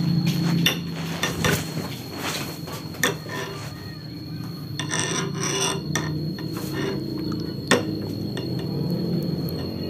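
A hand wrench working bolts on a Honda Revo Absolute's engine: scattered metal clicks, clinks and scrapes, with a denser rasping run about five seconds in, as the engine is opened for cam chain removal.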